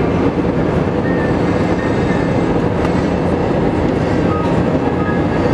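Steady cabin noise inside a jet airliner in flight: the even rumble and hiss of the jet engines and the air rushing past the fuselage.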